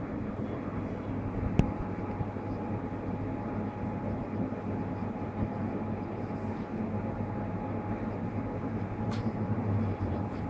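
Steady low mechanical hum with a faint steady tone over it, and a light click about a second and a half in and another near the end.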